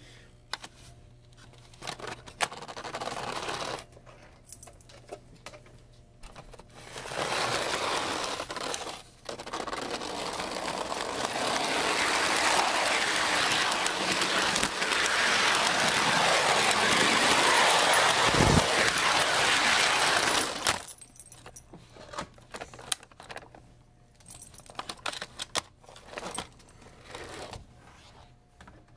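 Lionel O gauge model locomotive running on its track, heard from a phone riding on it: wheels rattling and clicking over the rails over a steady low hum. In the middle a louder stretch of dense rushing noise builds for several seconds, with one heavy thump within it.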